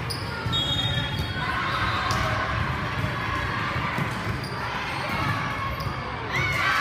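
Volleyball rally: sharp hits of the ball over a steady murmur of spectators in a gym hall, with the crowd starting to shout and cheer near the end.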